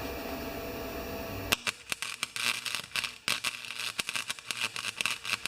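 A steady hum, then about a second and a half in an electric welding arc strikes and crackles and spits irregularly as a bead is laid on a small steel part.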